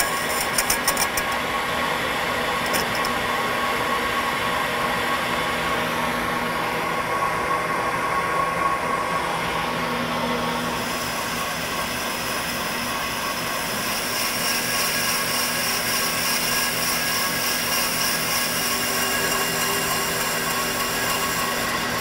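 BendPak brake lathe turning a clutch flywheel while its carbide bit cuts a facing pass across the surface: a steady machining whirr from the running lathe and the cut. There are a few clicks in the first second, and the higher part of the cutting sound shifts partway through.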